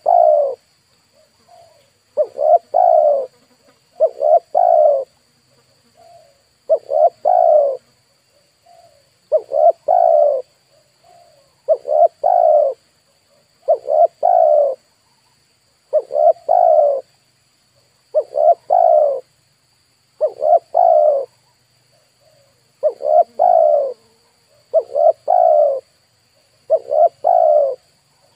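Spotted dove cooing over and over: each phrase is a soft short note and then two or three loud, low coos, repeated about every two seconds.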